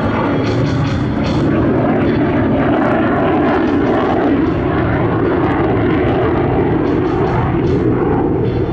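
Sukhoi Su-27 fighter's twin AL-31F turbofan engines: loud, steady jet noise that holds level throughout.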